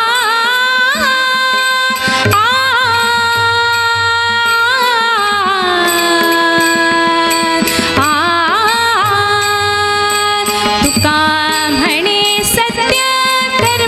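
Devotional bhajan music: a melody of long held notes that bend and waver, with a few sharp percussion strokes.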